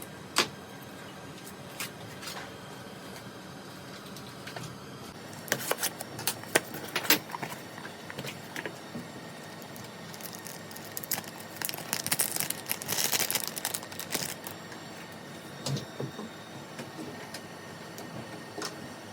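Hands working on a laptop's case during repair: scattered sharp clicks and taps, a quick cluster of them about a third of the way in, and a longer stretch of small metallic rattling and scraping around the middle.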